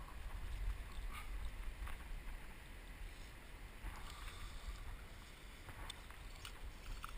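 Wind rumbling on the microphone, with small splashes and sloshes of shallow water at irregular moments.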